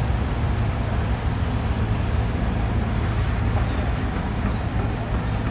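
Heavy machine's diesel engine running steadily, a constant low hum with no change.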